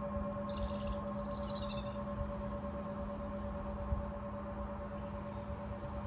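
Brass singing bowl ringing on after being struck, a steady hum of several tones slowly fading. Birds chirp briefly in the first two seconds.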